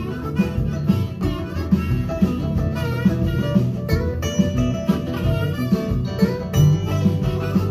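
Live instrumental break of a laid-back blues-rock groove: a hollow-body electric archtop guitar picking lead lines together with a harmonica, over a steady beat.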